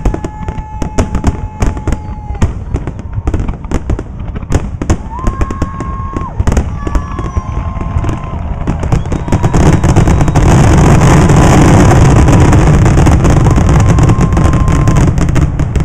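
Aerial fireworks going off in rapid bangs, with several held whistle-like tones among them. About ten seconds in, the bangs merge into a dense, continuous barrage for about five seconds, then thin out again.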